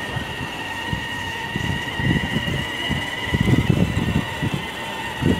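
A child's battery-powered ride-on toy jeep driving on paving: a steady high motor whine, with irregular low rumbling that is loudest about three and a half seconds in.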